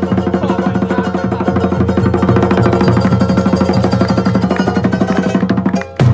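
Polynesian music of fast-strummed string instruments over a steady pulsing bass, cutting off abruptly near the end, followed by a single short loud hit.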